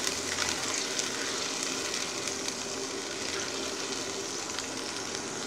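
Onion, ginger, garlic and tomato paste sizzling steadily in hot mustard oil in a pan while a spatula stirs it, the paste being fried down until the oil separates.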